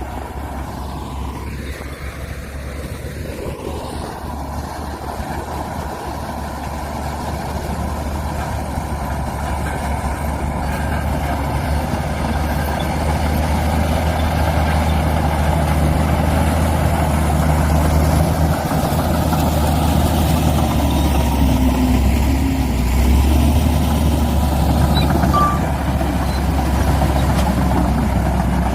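Heavy diesel earthmoving machinery running hard, a deep steady engine drone that grows louder over the first half and stays loud.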